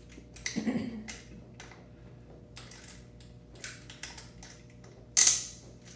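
Light clicks and taps of metal parts as a prosthetic leg's pylon is pulled out and lengthened by hand. A cluster of clicks comes about a second in, and one much louder, brief, sharp noise comes about five seconds in.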